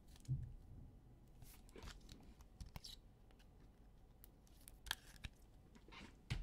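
Faint handling of trading card packaging: scattered light clicks and short rustles as a card box and packs are worked open.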